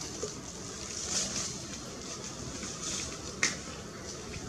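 Steady wind-like outdoor hiss, with the high rustle of a macaque handling a foil snack wrapper swelling now and then, and one sharp crackle of the foil about three and a half seconds in.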